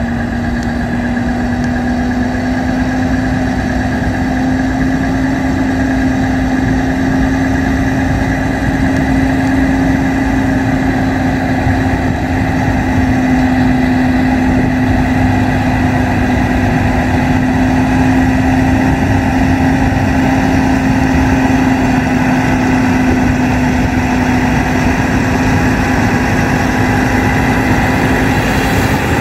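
Heavy truck's diesel engine running steadily at low revs, with a constant droning hum.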